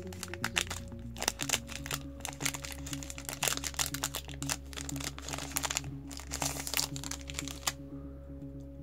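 Foil trading-card booster pack crinkling and crackling as it is torn open by hand and the cards pulled out; the crackling stops near the end. Steady background music plays underneath.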